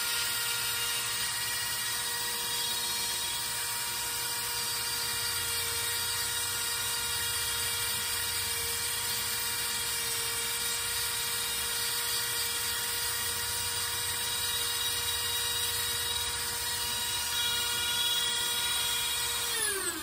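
Dremel rotary tool with a flex-shaft attachment running at almost its top speed, a steady high whine, as its sanding drum shapes the edge of a Micarta knife scale. Right at the end it is switched off and its pitch falls as it spins down.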